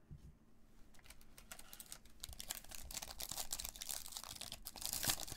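Foil wrapper of a Panini Donruss basketball card pack crinkling and crackling in gloved hands as it is worked open, the crackles growing denser and louder toward the end.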